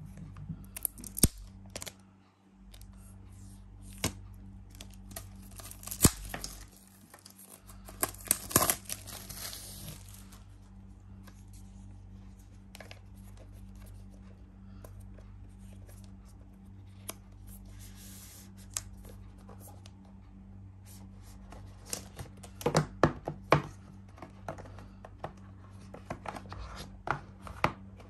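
Paper-and-cardboard packaging of an Apple Pencil being opened by hand. There is a stretch of tearing and rustling paper a few seconds in, then scattered taps, clicks and scrapes as the box and its inner tray are handled, with a busier run of clicks near the end.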